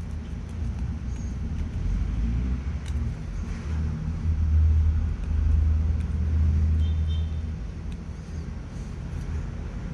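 Low engine rumble of a motor vehicle, swelling about four seconds in and easing off by about eight seconds, with a few faint clicks.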